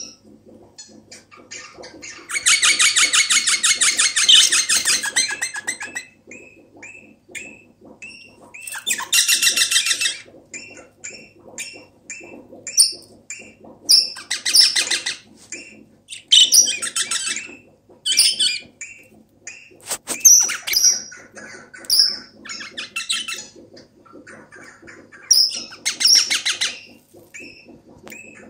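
Eastern rosella parrot giving repeated bursts of fast, laugh-like chattering. The first burst is the longest, about three seconds, and short whistled notes come between the bursts.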